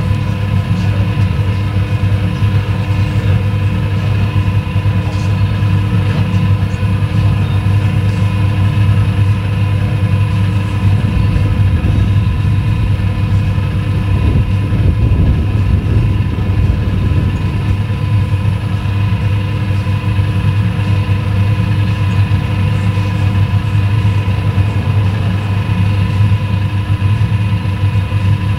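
Steady low rumble and hum of motorway traffic on the bridge deck overhead, unbroken and even throughout.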